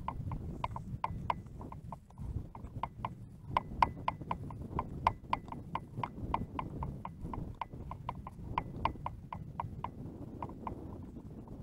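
Rapid, regular clicking, about four clicks a second, over a steady low rumble.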